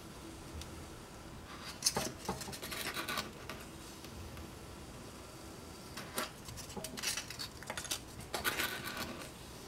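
Rigid foam pieces scratching and rubbing as they are slid along a wooden guide on a plywood board and pushed through a hot-wire foam cutter: two spells of dry scraping, each starting with a sharp click.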